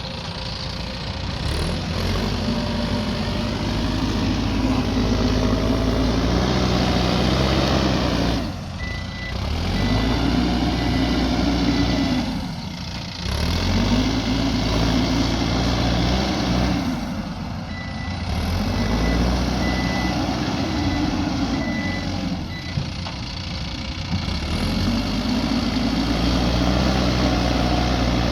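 Diesel engine of a heavy earthmoving machine working, its note rising under load and easing off in a cycle every four to five seconds, with a high reversing beeper sounding on and off.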